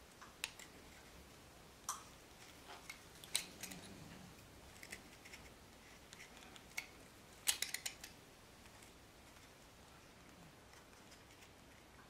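Utility-knife blade slicing thin curled petals into a dry wood stick: scattered faint clicks and crackles as each shaving is lifted, with a tight cluster about seven and a half seconds in.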